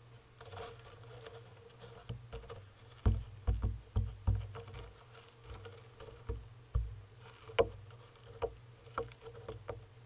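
Western gull pecking and stepping on the seed-covered railing right beside the camera: irregular taps and knocks, with a quick run of heavy thumps about three to four and a half seconds in and another sharp one about seven and a half seconds in.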